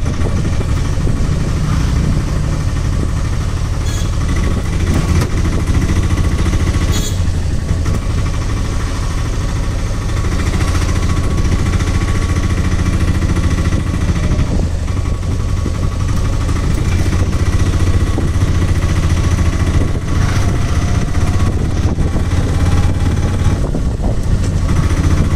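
Engine of a small vehicle running steadily while it drives along, heard from on board, a low even rumble with road noise.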